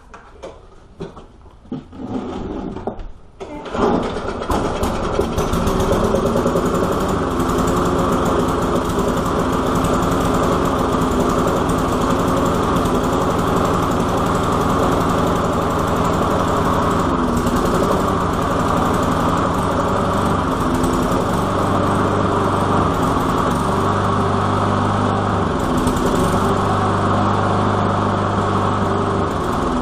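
Walk-behind lawn mower's small petrol engine starting: a few short sputtering bursts, then it catches about four seconds in and runs steadily.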